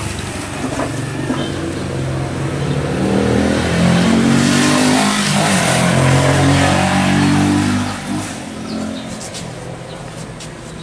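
Small motor scooter passing by, its engine rising and falling in pitch as it speeds up, then fading away after about eight seconds.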